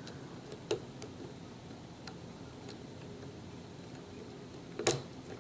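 A few faint, sparse metallic clicks from a lock pick and tension tool working the pins of a pin-tumbler lock, with a sharper click near the end.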